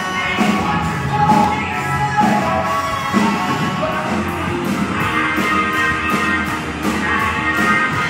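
A rock band playing live, with a sung lead vocal over guitars and a steady drum beat.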